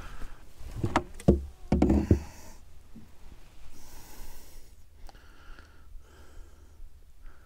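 A few dull knocks inside the canoe, the loudest just after a second in, then several faint, short breaths close to the microphone.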